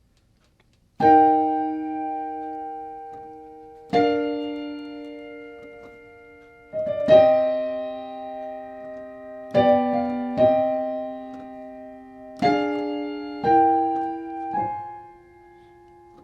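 Piano playing slow, simple chords, about eight of them, each struck and left to ring and fade, starting about a second in.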